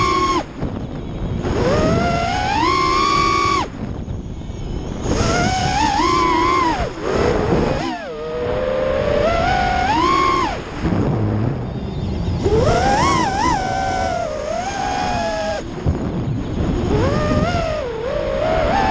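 FPV freestyle quadcopter's brushless motors whining as the throttle is punched and cut. The pitch climbs and falls in repeated bursts, dropping away briefly several times.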